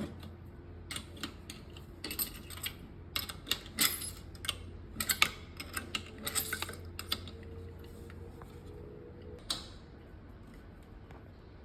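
Irregular small clicks and knocks of plastic valve parts being handled and fitted into a hydrafacial machine, over a low steady hum.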